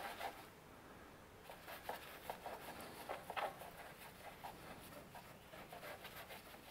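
Faint, scattered clicks and rubbing from hand tools and gloved hands working under a car, over quiet room tone.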